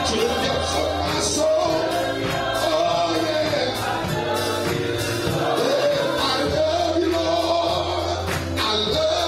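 Live gospel music: a choir singing over a steady band accompaniment with a regular beat.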